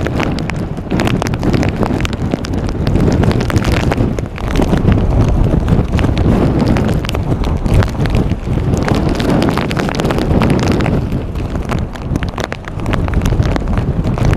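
Strong wind from a tornado buffeting the microphone: a loud low rumble packed with rapid crackling hits, swelling and easing, with brief lulls around four seconds in and near the end.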